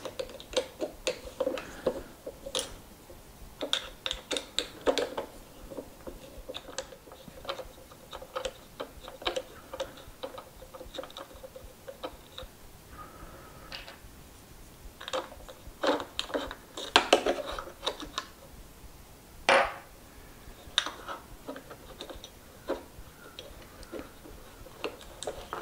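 Irregular clicks, taps and light metal knocks of hands working the folding metal pedal of a Gotway Mten3 electric unicycle and a hex key against its pedal bracket and plastic shell, with the loudest knocks about 17 and 19 seconds in.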